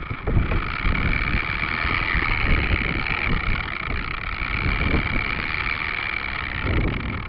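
Dromida Ominus quadcopter's motors and propellers buzzing at a steady pitch in flight, fading away near the end.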